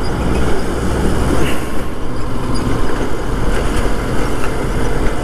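On-board riding noise from a Yamaha FZ motorcycle following close behind a truck: engine, wind and road noise blended into a steady, loud low rush.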